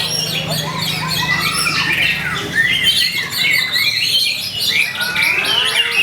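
White-rumped shama (murai batu) singing a fast, unbroken run of varied whistled phrases and chattering notes, the full, mimicry-rich song of a bird in form.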